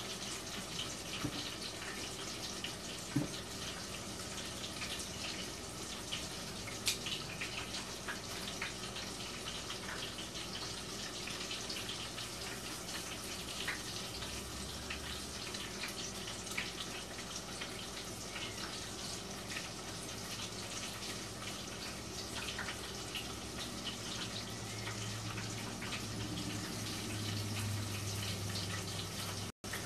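Coconut-battered shrimp deep-frying in a pot of hot canola oil: a steady sizzle with scattered small pops and crackles. A low hum comes in near the end.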